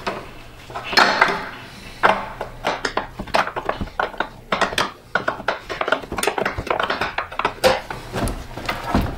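Half-inch wrench clinking and tapping against the transmission cooler line fitting on the radiator as the fitting is cracked loose and spun off: a run of quick, irregular metal clicks.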